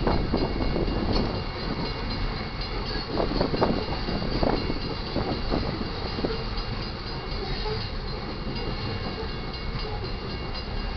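A loaded freight train rolling past: a steady rumble of wheels on rail, with a few sharp clanks in the first several seconds, then an even rumble.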